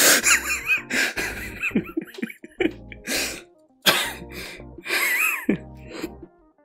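A man laughing hard in a string of wheezing, gasping bursts with squeaky high-pitched breaths, over quiet background music.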